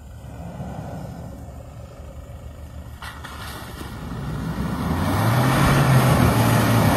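Toyota Hilux pickup engine pulling the truck through mud and tall grass. It grows louder from about four seconds in as the truck drives up and past close by, with tyre and grass noise under the engine note.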